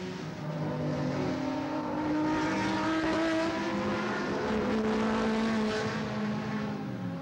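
Several racing saloon car engines revving hard as the cars pass through a corner, a mix of engine notes at different pitches rising and falling. The sound swells to its loudest in the middle and eases off near the end.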